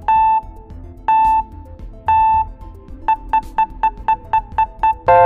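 Quiz countdown timer sound effect: three beeps a second apart, then a run of shorter, quicker beeps about four a second, ending in a longer tone of several notes at once near the end, over soft background music.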